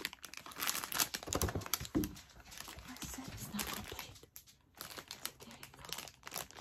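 Clear plastic packaging crinkling and rustling as it is handled, in irregular crackles with a short lull about four seconds in.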